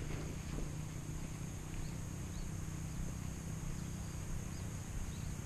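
Outdoor ambience: a steady, high-pitched insect drone with a few faint, short bird chirps, over a low steady hum.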